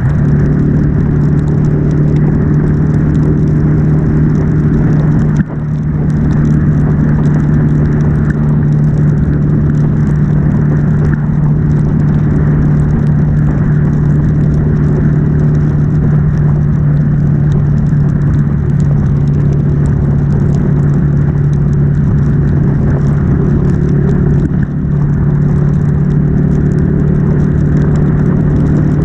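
Ducati Monster S2R's air-cooled L-twin engine running at a steady highway cruise, its low note held constant, under a hiss of wind and wet-road spray. The sound dips briefly twice, about five seconds in and a few seconds before the end.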